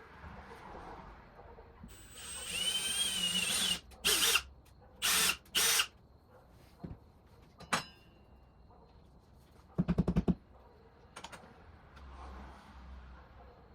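Power drill driving into the wall to mount the clock: one run of about two seconds with a motor whine, then three short bursts, a single click, and a quick rattling burst a few seconds later.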